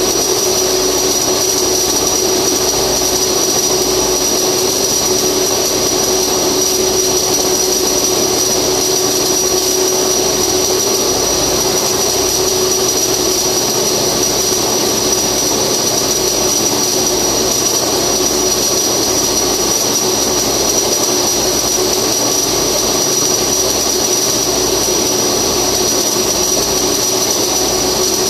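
Flux-cored arc welding in the vertical position: a continuous, steady arc hiss without a break, with a steady high whine alongside.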